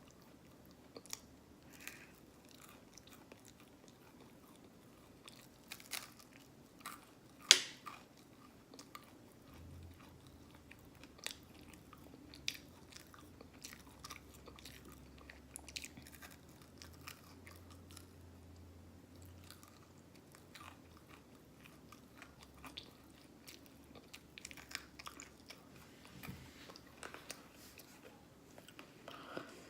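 Close-up open-mouthed chewing of syrupy cinnamon waffles, with scattered wet smacks and clicks of the mouth; one sharp click about a quarter of the way in is the loudest.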